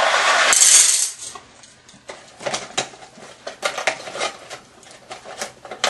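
Metal nails and screws clinking and clattering against a dish, a run of scattered sharp clicks, after a louder noisy rush in the first second.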